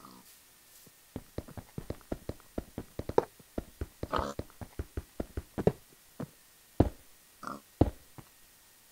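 A quick run of sharp knocks and taps, about three or four a second, starting about a second in, with a few louder, spaced-out knocks near the end.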